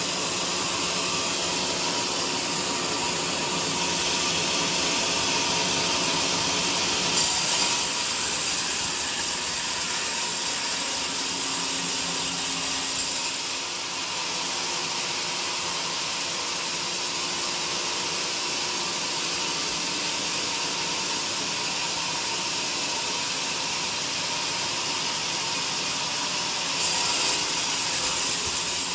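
Band sawmill running steadily, its band blade cutting lengthwise through a heavy joar hardwood beam. It sounds hissier and a little louder twice: for several seconds about a quarter of the way in, and again near the end.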